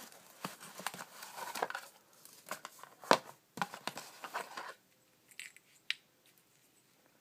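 Handling of a cardboard box and foam packaging: rustling, scraping and clicks as an electronic speed controller with its wires is pulled out of its foam insert, with one sharp knock about three seconds in. Quieter from about five seconds in, with a few light clicks.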